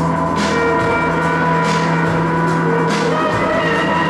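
Experimental electronic noise music: a steady drone of held tones under a hiss that swells and fades about every second and a quarter.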